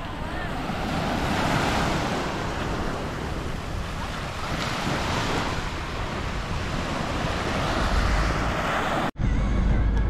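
Small surf breaking and washing up on a sandy beach, swelling and easing every few seconds, with wind buffeting the microphone. The sound cuts off abruptly about nine seconds in.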